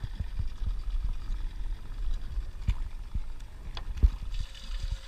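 Small boat drifting at sea: uneven low rumbling and thumping of water slapping against the hull, with a few sharp knocks, the loudest about four seconds in.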